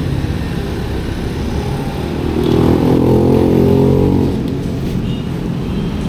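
Street traffic rumbling steadily, with a motor vehicle passing louder about halfway through, its engine note swelling and then falling away.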